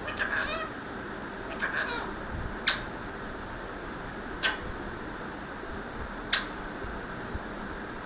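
Alexandrine parakeets giving two brief bursts of short chirping calls in the first two seconds, then three sharp clicks spaced about two seconds apart.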